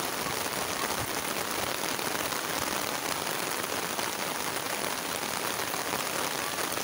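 Light rain falling steadily on wet concrete ground, an even hiss with no distinct drops or splashes standing out.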